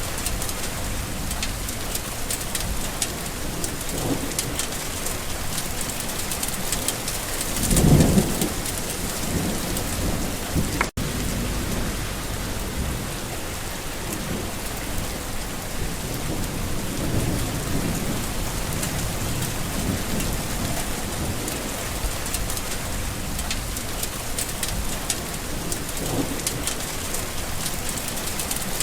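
Steady rain falling on surfaces, with low thunder rumbling several times; the loudest rumble comes about eight seconds in. The sound cuts out for an instant about eleven seconds in.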